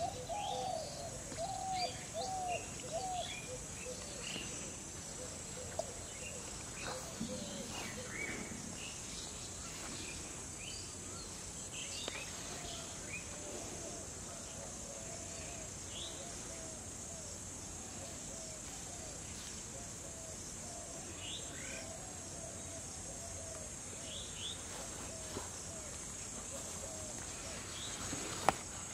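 Outdoor ambience of a steady, high insect drone with birds chirping and calling throughout, including a run of repeated lower calls at the start and again midway. A single sharp tap sounds near the end.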